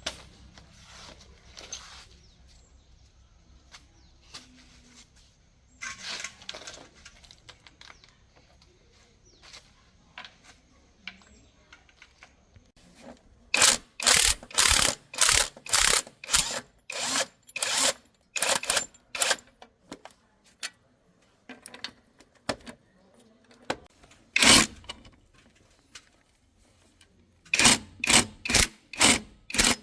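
Hand-tool work on metal: a few faint clinks and rattles, then about halfway through a long run of loud, sharp strokes, roughly two a second, stopping and starting a few times.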